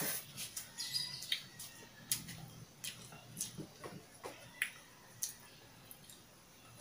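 Mouth sounds of chewing a mouthful of ramen noodles: wet smacks and small clicks at irregular intervals, dying down over the last couple of seconds.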